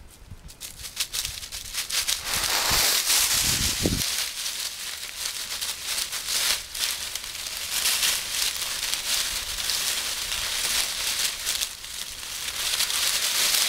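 Dry fallen leaves crackling and rustling in a dense, continuous run of crunches as the dogs scuffle and play through deep leaf litter.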